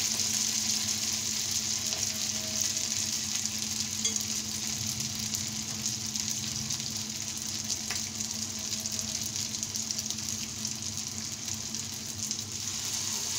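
Breadcrumb-coated, potato-stuffed bread shallow-frying in hot oil in a pan, sizzling steadily.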